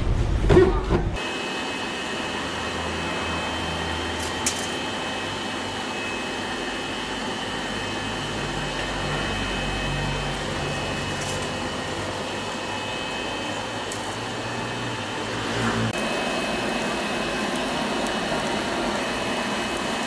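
Steady whir of a coke forge's air blower feeding the fire, with a constant faint high whine and a low hum. One light metallic click about four and a half seconds in.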